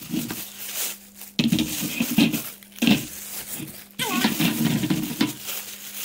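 Clear plastic bag crinkling and rustling in irregular bursts as it is pulled off a chrome wire fruit basket, with light metallic clinks from the wire frame.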